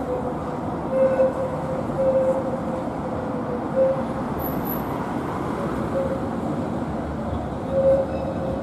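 Karlsruhe Stadtbahn GT8-100 light-rail tram rolling through the curve into the stop: a steady rumble of wheels on track, with a tone that swells briefly and fades four or five times.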